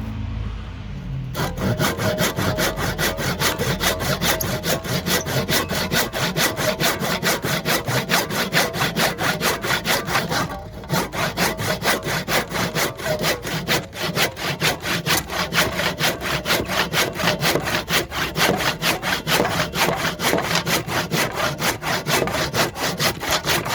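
Handsaw cutting through a cedar block in steady back-and-forth strokes, starting about a second and a half in, with one short pause midway.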